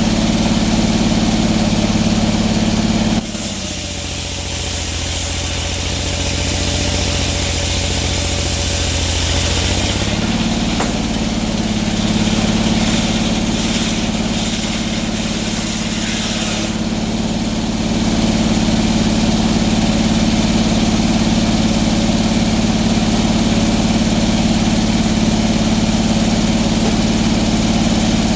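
Sawmill engine running steadily. About three seconds in it drops suddenly to a lower, quieter note, then climbs back to its former speed around ten seconds in and holds there.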